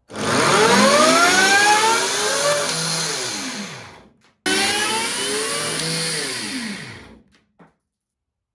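Electric-motor belt-drive test rig for a 3D-printed ABS clutch running with a whine that climbs in pitch as it spins up, then sinks as it winds down. This happens twice, the second run starting abruptly after a short gap.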